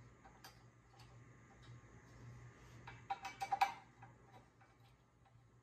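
Light metallic clicks and taps of a hand tool working a steel mounting bolt on a brush guard as it is tightened, with a short run of louder clicks about three seconds in.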